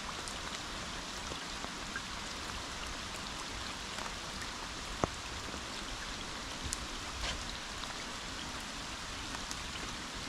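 Steady rain falling, an even hiss with scattered sharp ticks of drops striking close by, one louder tick about five seconds in.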